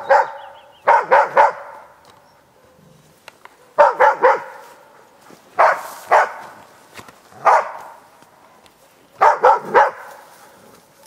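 East Siberian Laika barking in short runs of one to four barks, with pauses of a second or two between runs: a hunting dog baying at wild boar.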